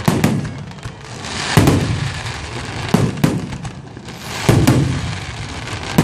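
Aerial fireworks shells bursting in quick succession: about six sharp booms, roughly every second and a half, each followed by a fading low rumble, with a steady crackling hiss in between.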